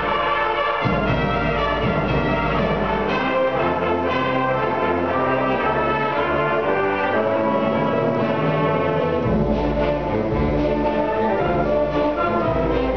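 Concert band of brass and woodwinds playing a march, with low brass underneath and occasional accented hits.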